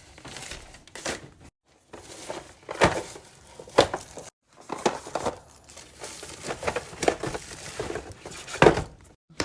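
Packaging crinkling and tearing as it is unwrapped, with a few sharper knocks among the rustling.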